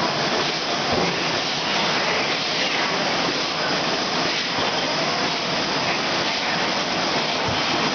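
Rotary cooking oil filling and capping machine running, a steady, even mechanical noise with no distinct strokes standing out.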